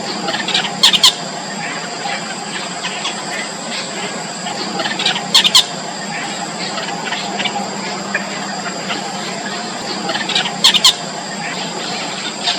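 Yellow bittern chicks in the nest giving short, high-pitched calls, with a louder cluster of calls about a second in, again in the middle and near the end. A steady high whine runs underneath.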